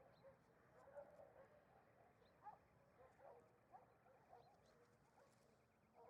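Faint, short animal calls, repeated irregularly over a low hiss.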